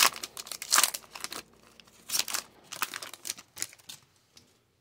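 Foil wrapper of an Upper Deck hockey card pack crinkling and tearing as it is ripped open and peeled off the cards, a string of sharp crackles that dies away near the end.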